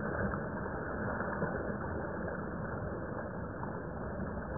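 Steady rushing of a fast-flowing river around anglers wading in it.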